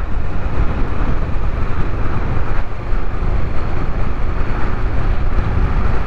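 A moving vehicle's engine and road noise, a steady low rumble, with wind rushing over the microphone.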